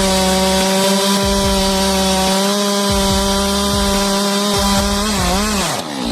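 Stihl MS462 two-stroke chainsaw running at high revs as it cuts through a log, with a steady engine note. Near the end the pitch wavers and falls away.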